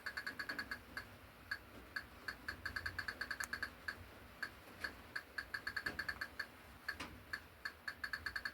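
Rapid, repeated clicks, several a second in runs with short pauses, from a Roku player responding over and over to a water-damaged Roku remote stuck sending a button press (volume up). The clicking goes on without a break, the sign of the water damage.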